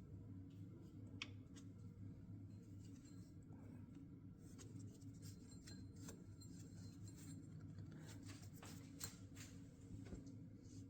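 Faint rustling and small clicks of hands working a new rubber power steering belt onto its pulley, over a steady low hum.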